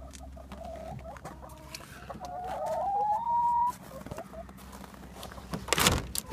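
Hen making a drawn-out call that climbs in pitch over about three seconds. A brief loud noise of handling comes near the end.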